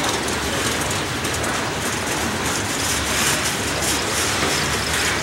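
Freight train of covered steel coil cars rolling past close by: a steady rumble of steel wheels on rail, with faint clicks.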